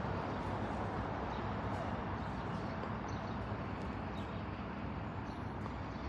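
Steady outdoor urban background noise: an even low rumble of distant traffic and surroundings, with no distinct event standing out.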